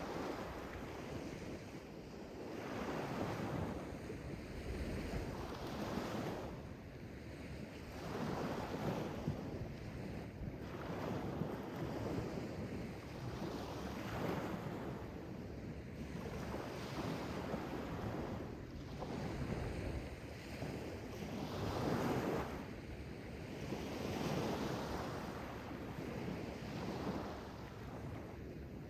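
Sea waves washing in and drawing back, the rushing surf swelling and falling every two to three seconds.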